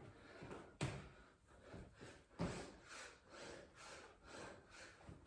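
Hard breathing with sharp exhales from a person doing burpees with push-ups, mixed with soft thumps and rubbing of hands and feet on a towel laid over a stone floor. Two exhales stand out, about a second in and near the middle.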